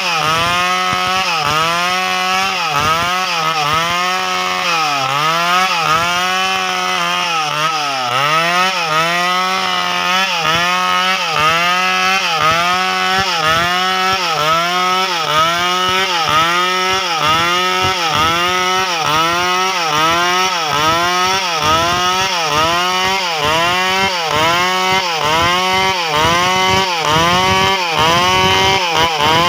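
Stihl two-stroke chainsaw running at high revs while cutting wood, its engine note dipping and recovering about once a second as the chain bites and frees.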